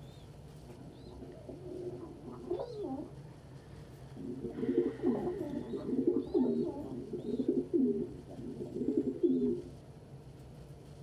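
Domestic pigeon cooing: a run of low, warbling coos from near the middle for about five seconds, after a shorter coo a couple of seconds in, with faint high chirps from other birds.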